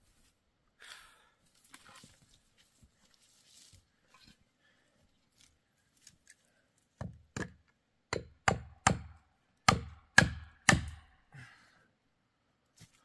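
A series of about eight sharp chopping blows on dead ponderosa pine wood, coming quickly one after another over about four seconds after some faint rustling.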